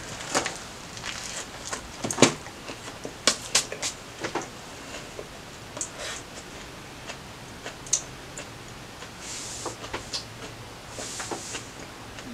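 Close-miked eating: a bite of a Subway steak and cheese sandwich being chewed, with irregular crunches and wet mouth clicks, the loudest about two seconds in.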